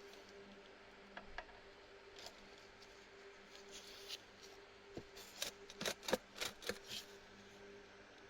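Small hard objects being handled: a few scattered clicks, then a quick flurry of about ten sharp clicks and knocks over a couple of seconds midway, over a faint steady hum.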